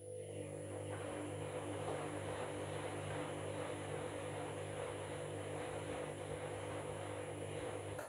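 Candy front-loading washing machine in its wash phase: the drum motor hums steadily as it turns the drum, with wet duvet bedding tumbling and water sloshing inside.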